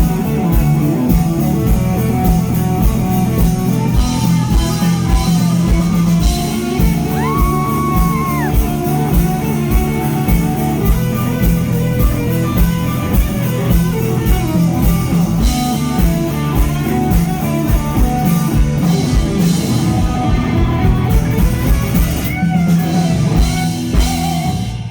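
Live rock band playing at a concert: electric guitar, bass and a steady drum beat, with a few held melodic notes on top. The level drops away right at the end.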